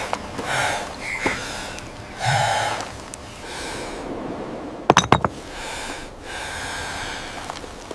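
Heavy breathing with short snorts and gasps, the strongest about two seconds in, then a quick run of sharp clicks about five seconds in.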